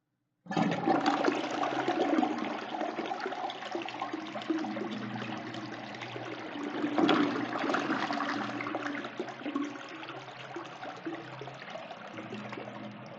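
Toilet flushing: the water rushes in suddenly about half a second in and keeps swirling and draining. It swells again about halfway through, then gradually eases off.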